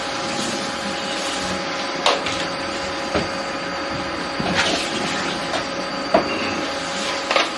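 Steady mechanical hum of kitchen machinery with several constant tones, overlaid by a few short light knocks and clicks as chicken strips are pressed into a cling-film-lined metal terrine mould with hands and a blade.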